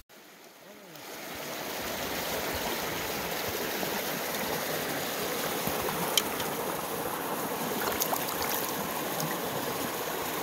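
Small mountain creek running over rocks: a steady rush of water that fades in over the first second or two. A few small clicks sit on top of it, the sharpest about six seconds in.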